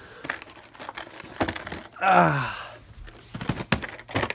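Cardboard collection boxes in shrink-wrap being handled and moved, giving short knocks and crinkles. About two seconds in comes a short wordless voice sound that falls in pitch.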